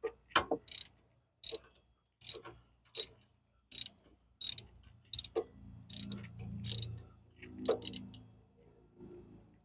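Socket ratchet worked in short strokes to loosen a nut, a quick burst of clicks on each back-swing, about one to two strokes a second.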